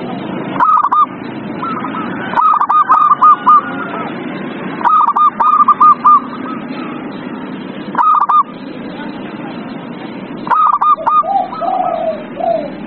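Zebra dove (perkutut) cooing song: about five bursts of quick, repeated notes, with a run of lower notes near the end, over a steady background noise.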